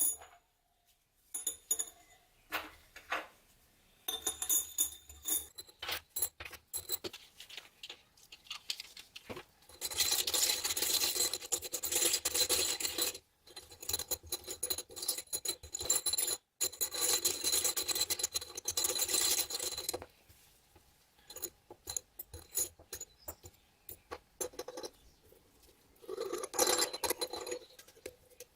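Small metal padlock parts being worked by hand: scattered clicks and clinks, and several stretches of steady scraping a few seconds long.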